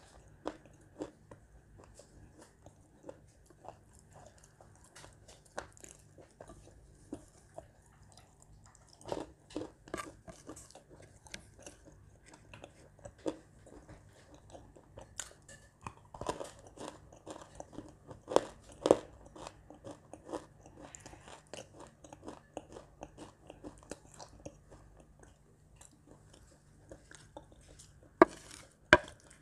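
Dry edible clay being crunched, bitten and chewed close to the microphone, with crumbling of the chunks by hand on the plate: irregular sharp crunches throughout, the loudest a few in the middle and two near the end.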